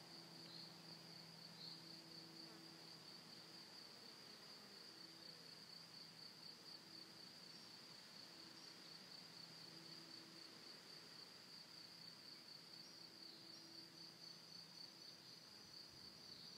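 Near silence under a faint, continuous high-pitched insect trill, with a faint low hum that comes and goes.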